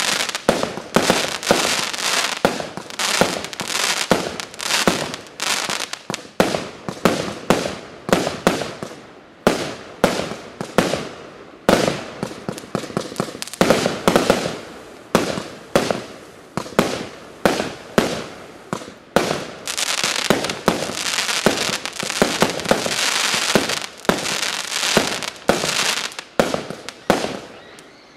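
Klasek Emperor fireworks cake (130 shots, 20 mm calibre) firing a continuous barrage: sharp shots come a few a second, with the bursts of crackling stars filling the gaps between them.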